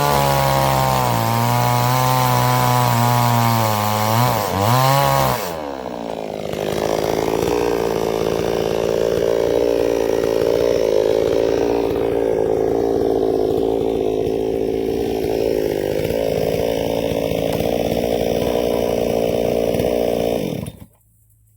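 Chainsaw on a vertical chainsaw mill, running at high revs, its pitch dipping and swinging back up about four to five seconds in, then running steadily as it saws through the log, and stopping abruptly near the end.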